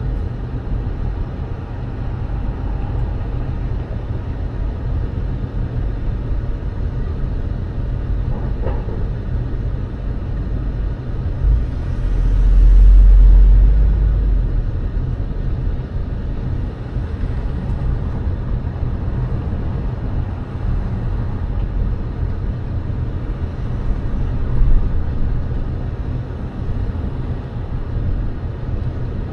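Steady rumble of road traffic. A deeper, louder low rumble swells about twelve seconds in and fades out over a couple of seconds.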